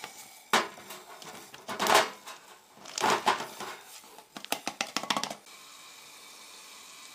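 Plastic container of frozen soup knocked and scraped against a metal camping pot to work the frozen block loose: a few separate knocks, then a quick run of taps about five seconds in, followed by a faint steady hiss.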